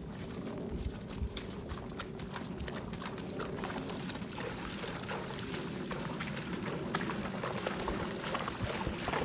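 Horses wading through shallow swamp water, their hooves splashing and sloshing in a steady, irregular stream of splashes.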